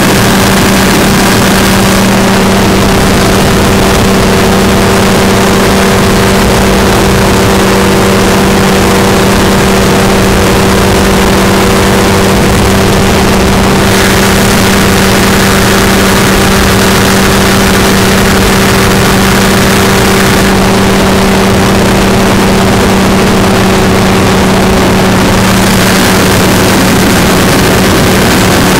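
Light aircraft engine droning steadily in cruise flight, with one unchanging pitch. Wind rushes over the microphone, its hiss stepping louder and softer a few times.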